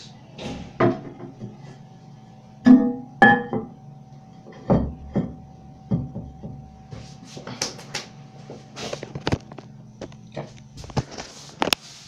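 Knocks, clicks and a few short ringing clinks of parts being handled as the tank clip is put back on a 2001 Eljer Savoy toilet tank, over a faint steady hum.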